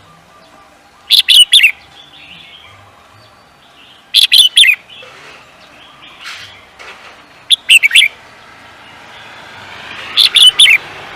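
A songbird singing a short, loud phrase of three or four sharp, high chirps, repeated four times about three seconds apart.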